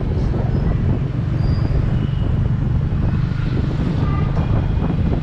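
Steady rumble of a motorbike ridden through city traffic, heard from the pillion seat, mixed with wind buffeting the microphone.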